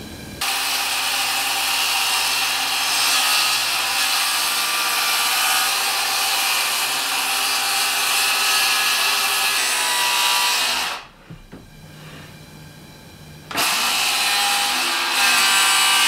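Cordless circular saw ripping a long wooden board lengthwise. It starts cutting about half a second in and runs steadily until about eleven seconds in, drops off, then starts cutting again about two seconds later.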